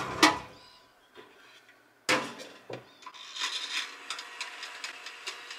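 Small countertop toaster oven being loaded and set: a sharp metal-and-glass clack as the door shuts about two seconds in, a dull knock just after, then a run of small clicks as the control dial is turned, over a faint steady hum.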